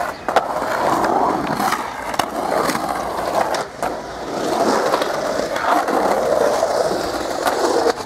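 Skateboard wheels rolling on a concrete bowl, a steady rumbling roll that swells and fades as the skater carves around the bowl, with a few sharp clacks of the board.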